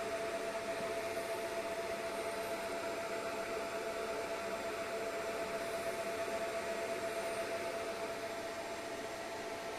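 Steady whir of a laser engraving machine's cooling fan, an even rushing noise with a constant hum-like tone, idling while the red aiming pointer is on and no marking is being done.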